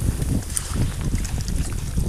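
Wind buffeting the microphone in a low, uneven rumble, over water lapping against a small boat.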